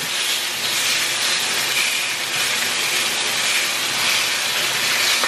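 Skin-on chicken pieces sizzling steadily in a dry frying pan, frying in the fat rendered from their own skin.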